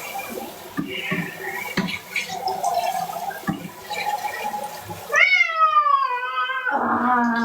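A cat being bathed: wet splashing and scrubbing of its fur, then about five seconds in a long, loud meow that falls in pitch and runs into a lower cry. A cat protesting its bath.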